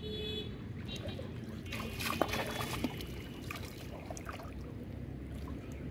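Shallow water splashing and trickling as a person wades in and handles a floating plastic-bottle fish trap, with a cluster of sharper splashes about two seconds in.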